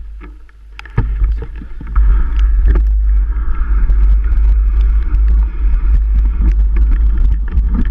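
Mountain bike ridden over a wet, rough trail: a heavy low rumble of wind on the microphone, with frequent knocks and rattles from the bike. It gets louder about two seconds in.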